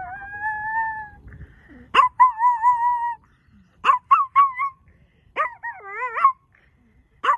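A Chihuahua howling in a string of cries. It opens with a long, steady howl. About two seconds in comes a wavering howl, then three short yips around four seconds, and a warbling howl with swooping pitch near six seconds.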